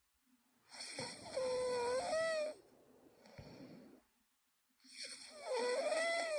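A sleeping young woman snoring: two long snores, each with a wavering, whistle-like pitched tone, the first followed by a softer, breathier stretch.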